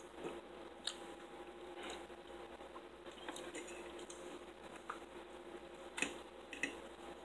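Quiet eating sounds: chewing and wet mouth smacks, with a few sharp clicks of a fork against a plate, over a faint steady hum.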